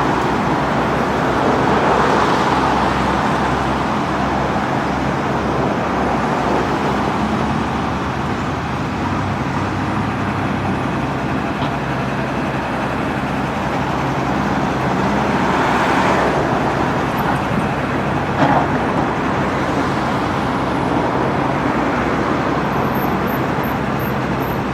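Cat 924G wheel loader's diesel engine running steadily while working, with one sharp clank about three-quarters of the way through.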